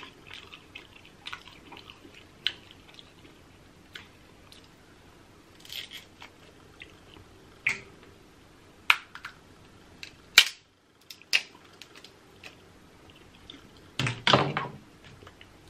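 Close-miked chewing and smacking while eating steamed crab legs, with scattered sharp cracks and clicks of crab shell being broken open, and a louder burst of cracking and chewing near the end.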